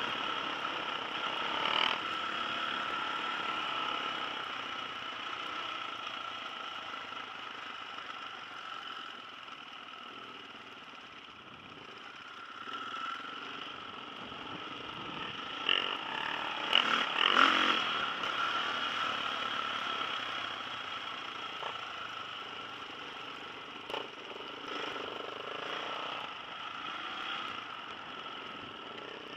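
Trail-bike engine running as the bike rides a muddy forest track, its loudness easing off and then picking up again. A burst of knocks and clatter a little past halfway, and a single knock near the end.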